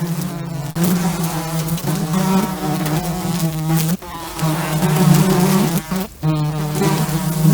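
A flying insect such as a fly or bee buzzing close by, a low steady drone with a slightly wavering pitch, broken off by brief pauses about four times.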